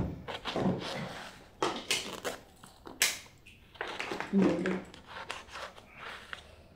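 Small kitchen knife cutting vegetables held in the hand: a run of irregular, crisp cutting clicks and crunches.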